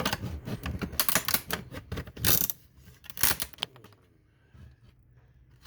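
Rapid, irregular clicking and cracking of a clip-together plastic modem housing being pried at with a screwdriver, with a few louder cracks; it stops about two-thirds of the way through.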